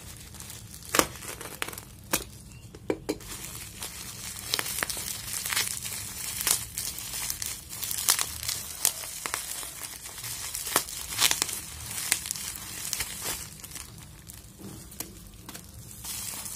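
Plastic packaging crinkling and rustling in the hands as a plastic courier mailer is cut open and the bubble-wrapped item inside is pulled out and handled, with irregular sharp crackles throughout.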